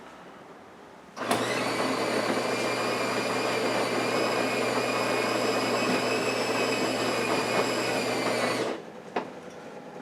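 Miele built-in coffee machine's bean grinder grinding whole beans for the drink. It is a steady motor whine with a constant hum that starts abruptly about a second in and cuts off sharply near the end.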